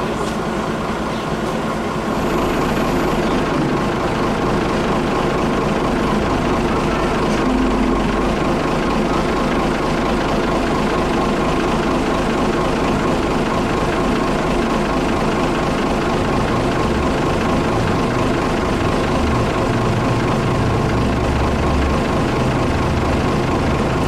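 Mobile crane's diesel engine and hydraulics running steadily while it holds a bell on its hook line, a constant drone with a steady whine and a low rumble that swells now and then.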